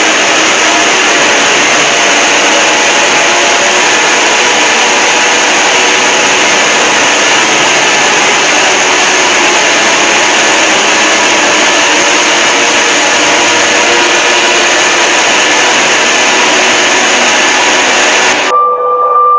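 Emergency alert alarm distorted into a very loud, steady noise like a harsh hiss, with faint alarm tones buried in it. It cuts off abruptly near the end, giving way to clean steady tones.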